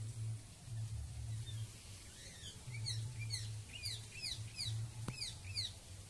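A bird calling a quick series of short, downward-sweeping chirps, about two to three a second, starting about two seconds in, over a low rumble on the microphone. A single sharp click comes near the end.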